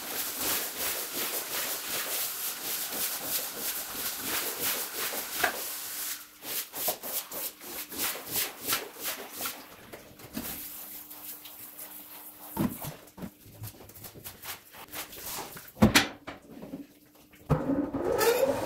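Fast, sped-up strokes of a squeegee scraping foamy water across a wet rug, the strokes spacing out after about six seconds. Two loud thumps follow, and near the end comes a rising whine as a rug centrifuge spins up.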